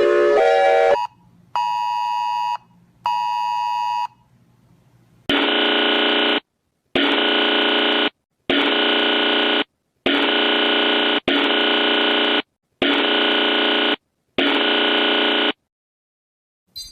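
Synthesized emergency-alert alarm tones: a melodic tone sequence cuts off about a second in, followed by two short beeps, then seven long harsh buzzer blasts of about a second each with brief gaps between them.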